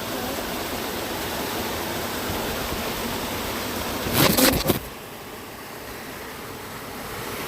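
Steady rushing of a nearby waterfall. About four seconds in, a brief loud rustle close to the microphone, after which the water sounds quieter and duller for a few seconds.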